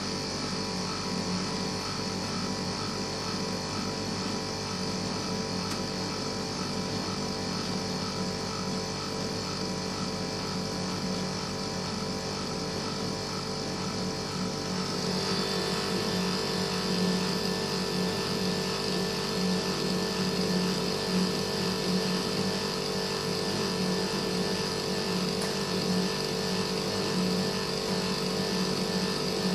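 Split air conditioner running steadily with a mechanical hum. Its sound shifts slightly higher and a little louder about halfway through.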